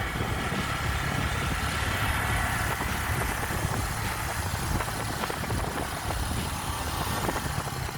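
Honda Click 150i scooter's single-cylinder engine running at a steady cruise while riding: a low, even engine hum under a constant rush of wind and road noise.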